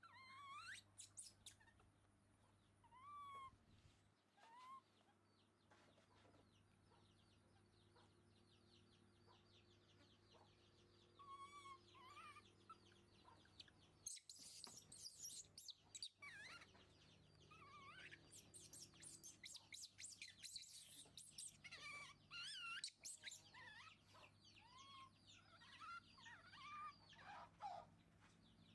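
Baby macaques giving short, high squeaky calls, with a flurry of squeals and rustling about halfway through as they scuffle, and busier squeaking near the end.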